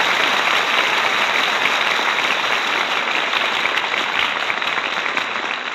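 Studio audience applauding, the applause starting to die away near the end.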